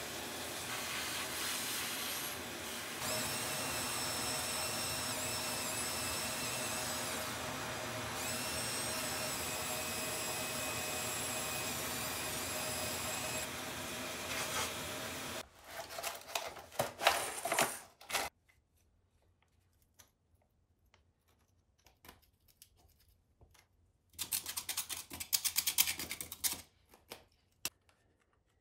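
A vacuum cleaner running steadily for about fifteen seconds while its hose nozzle sucks debris out of a rusty cast-iron toilet drain, its pitch shifting a little as the nozzle moves. It then cuts off suddenly and is followed by short bursts of clattering and rapid scraping.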